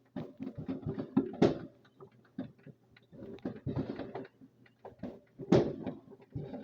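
Fireworks popping and crackling in rapid clusters, with two louder bangs about a second and a half in and near five and a half seconds.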